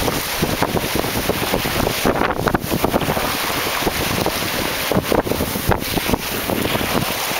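Wind buffeting the microphone in uneven gusts over the rush and splash of a small sailboat's bow wave breaking along the hull in choppy water.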